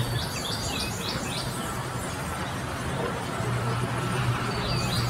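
Band sawmill running, a steady hum under a noisy hiss as the blade cuts through a log. A bird's quick descending chirps come in a short run at the start and again near the end.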